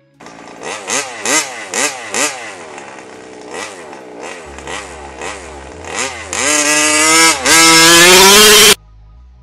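Losi 5ive-T's 29cc two-stroke gas engine revving in a string of quick throttle blips, about five in the first two seconds, then settling lower before climbing to a long full-throttle run at high revs with one brief dip. The sound cuts off abruptly near the end.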